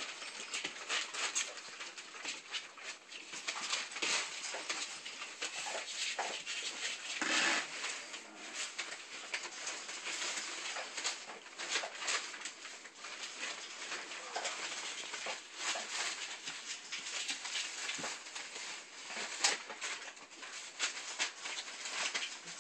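Puppies playing: a constant scuffle of paws and bodies, with occasional small yips.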